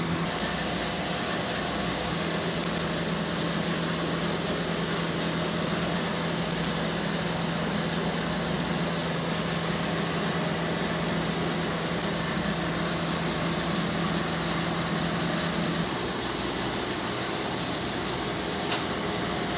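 Steady hiss with a low hum in a metal shop while a TIG torch tack-welds a steel exhaust cone to its flange. The hum stops about 16 seconds in, and a few faint clicks come through.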